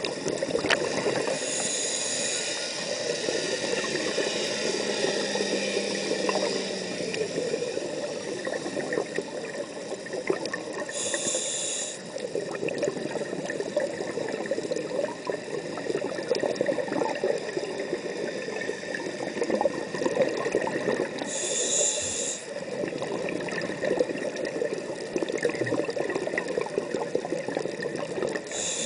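Underwater ambience: a steady, muffled water noise with constant fine crackling, and a short high hiss about every ten seconds.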